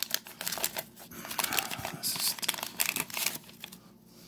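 Crinkling, crackling wax-paper wrapper of a 1987 Topps baseball card pack being torn open, along with rustling of the cards, a quick run of sharp clicks and crackles that dies down near the end.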